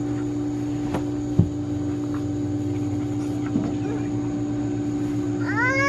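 A steady, machine-like hum of a few fixed low tones, with a soft knock about a second and a half in. Near the end a young child's voice starts singing.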